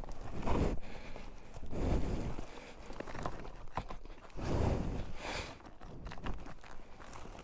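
Irregular scuffing and crunching handling noise from a tire plug tool being worked into the puncture of a tubeless motorcycle tire. There are several heavier surges and a couple of sharp clicks in the middle.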